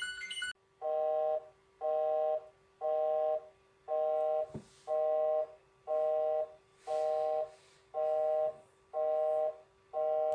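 Emergency alert tone: a multi-tone beep repeating about once a second, ten beeps each a little over half a second long, over a faint steady hum.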